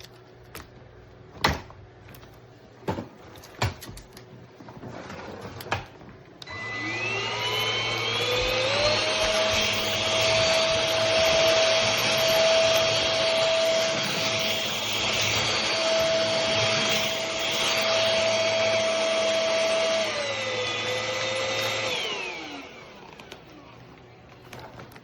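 A few sharp knocks, then the SUXIANGVAC cordless stick vacuum switches on, its motor whine rising as it spins up before running steadily. Near the end the whine steps down to a lower pitch, then falls away as the motor spins down.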